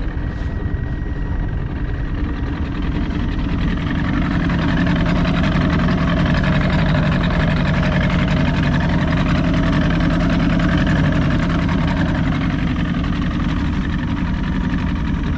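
Johnson 90 hp two-stroke outboard motor idling steadily, growing a little louder about four seconds in.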